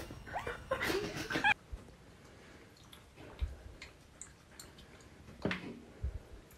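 A short vocal sound, then a cat pawing at water in a plastic bucket: faint small splashes and drips, with one louder splash about five and a half seconds in.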